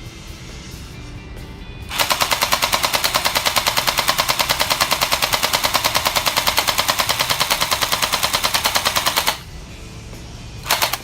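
Toy AR-15 gel-bead (Orbeez) blaster firing on full auto: a rapid, even burst of about ten shots a second lasting some seven seconds, then one short burst near the end.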